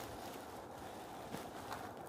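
Faint, steady outdoor background noise, with a few soft ticks in the second half.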